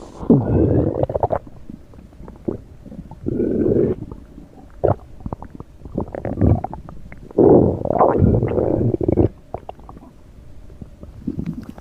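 A human stomach growling and gurgling in a series of irregular rumbles of different lengths, the longest about three-quarters of the way through, with small gurgling pops in between.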